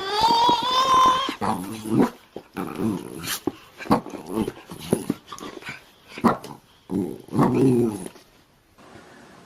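A dog growling in a string of short, low growls. A high-pitched cry lasting about a second comes at the start.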